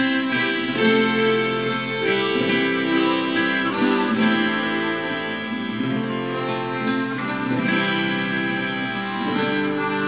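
Instrumental break in a song: a harmonica plays a melody of held notes over guitar accompaniment, with no singing.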